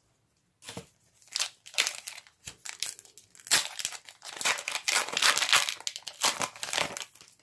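Foil Pokémon booster pack wrapper being torn open and crinkled, a run of irregular crackling rustles that gets denser and louder about three and a half seconds in.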